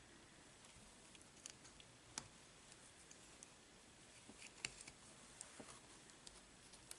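Faint, scattered small clicks and light rustles of a metal latch hook tool working short lengths of yarn through rug canvas, over low room noise.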